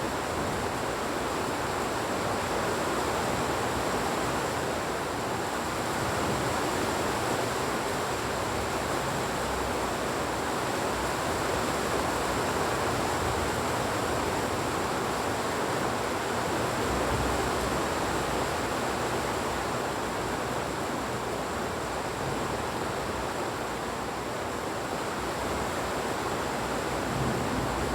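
Heavy rain falling steadily: an even, unbroken hiss with a faint steady high tone above it.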